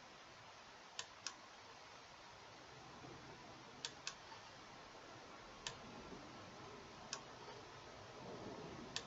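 Seven sharp computer-mouse clicks, two pairs about a quarter second apart and then three single clicks, over faint steady hiss.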